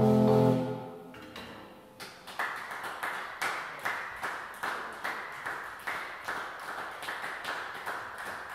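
An electric guitar chord, struck with a drumstick, rings out and fades away within the first second or so. It is followed by a regular series of sharp taps, about two and a half a second, that slowly get fainter.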